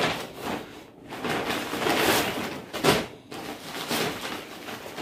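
Plastic shopping bags and clothing packets rustling and crinkling as they are handled, with a sharp crackle just before the halfway point.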